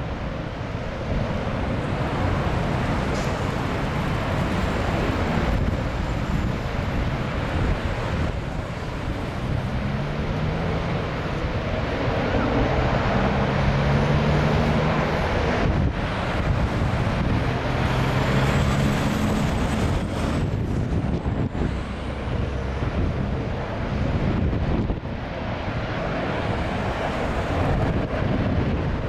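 Steady noise of road traffic passing on a busy road, with a heavier vehicle's engine humming for several seconds around the middle.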